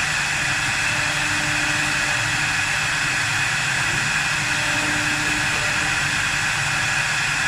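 4-axis CNC wood lathe running with a steady, even machine noise.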